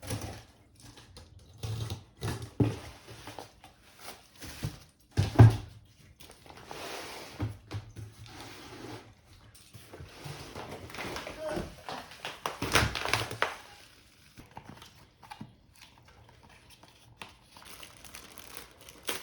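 Objects being handled in a small room: scattered knocks and thuds, the loudest about five seconds in and again near the middle, with rustling in between.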